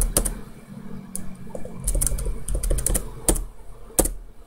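Computer keyboard keystrokes: a quick cluster of taps at the start, then single taps spaced roughly a second apart.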